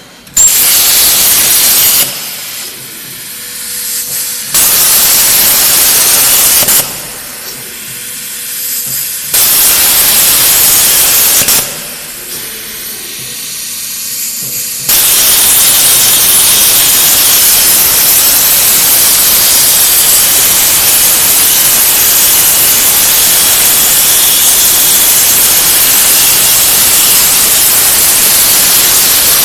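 CNC plasma table's plasma torch cutting sheet metal: a loud, harsh hiss that switches on about half a second in, cuts out and restarts three times over the first 15 seconds, then runs steadily through a long cut. In the short gaps between arcs a quieter machine sound with a faint steady tone remains.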